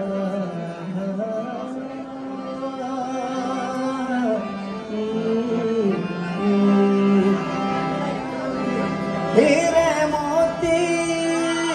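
Harmonium playing a slow melody of long held notes over a steady drone. A man's voice joins near the end, singing with wavering, gliding pitch.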